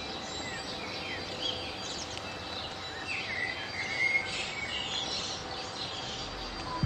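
Several birds chirping and calling, short quick calls and sweeps, over a steady outdoor background hiss.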